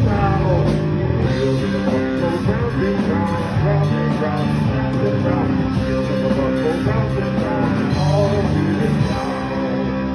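Rock band playing live, with guitar and singing.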